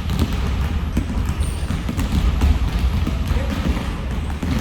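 Basketballs bouncing on a gym floor: many overlapping bounces and thuds, with voices in the background.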